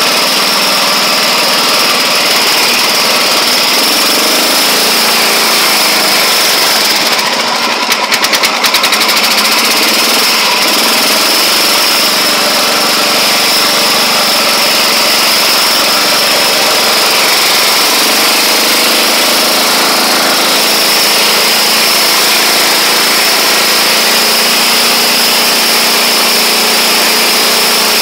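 1979 Roper 8 hp lawn tractor's engine running steadily as the tractor drives through snow. A brief run of rapid rattling knocks comes about eight seconds in.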